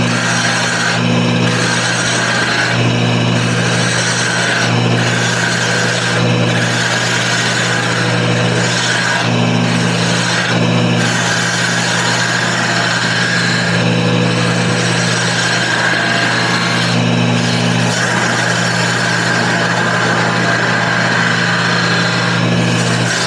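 Wood lathe running steadily while a turning tool cuts into the spinning wood, reducing a marked section of a toy top to a smaller diameter. The scraping cut breaks off briefly every second or two as the tool comes off the work, then runs more continuously near the end.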